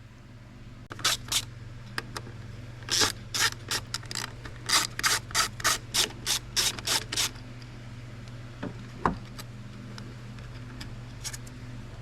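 A quick series of short rubbing strokes, about two or three a second, stopping after several seconds, with a few fainter ones near the end.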